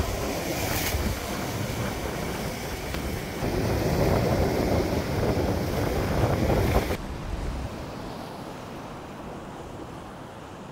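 Strong wind buffeting the microphone over breaking surf on a rocky shore, a dense rushing noise. It drops suddenly about seven seconds in and carries on quieter.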